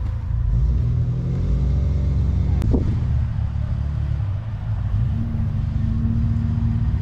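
Off-road 4x4 engines running at low revs in soft sand, one revving with its pitch rising over the first few seconds. About three seconds in there is a sharp click with a quick falling whine. Near the end a truck passing close gives a steady engine note.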